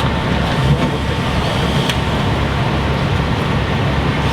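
An engine running steadily with a low, even rumble and a faint steady whine.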